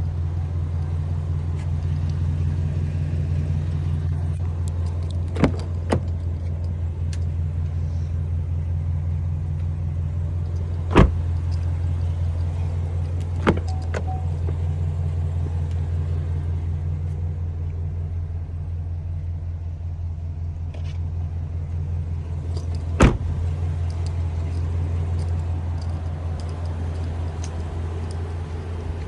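A motor vehicle engine idling with a steady low drone, broken by a few sharp knocks or clicks scattered through.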